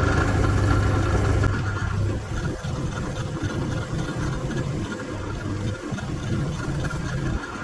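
Bench drill press motor running, spinning a brush against which a 316L stainless steel flat bar is held to rough it down towards a shine. A steady hum turns quieter, rougher and uneven about one and a half seconds in, as the brush scrubs the steel.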